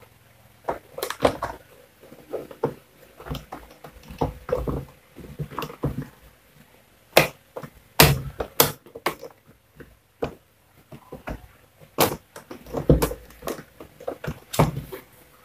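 Plastic housing of a Philips blender base being pressed and fitted back onto the motor unit by hand: irregular knocks, taps and sharper clicks of plastic on plastic, with short pauses between.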